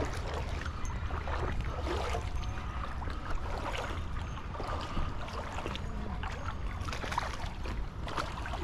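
Steady low wind rumble on the microphone over moving creek water, with scattered light clicks.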